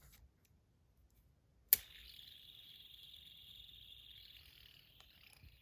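A fidget spinner flicked with one sharp click, then a faint, steady high-pitched whine as it spins, dipping slightly in pitch near the end.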